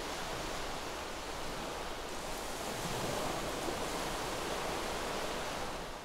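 Steady rushing noise with no tone or beat, swelling slightly about halfway through.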